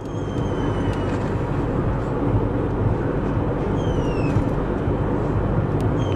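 Car driving along a road, heard from inside the car: a steady rush of tyre, road and engine noise with a low hum. A few faint, high, falling whistles sound over it.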